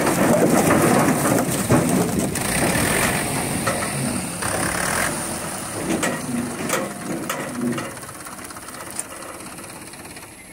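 Logs tumbling and clattering off the bed of a tipped tractor trailer, over a tractor engine running. The noise is loud at first and dies away over the second half.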